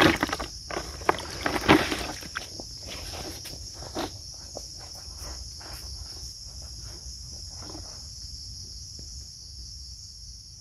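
A steady, high chorus of insects throughout. In the first four seconds, splashing footsteps and knocks as someone wades through shallow muddy water carrying a bucket.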